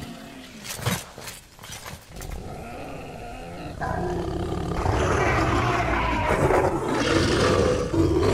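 Film sound-effects premix of a large creature roaring and growling over a rising noisy rumble, with a few sharp hits about a second in. The effects grow louder partway through.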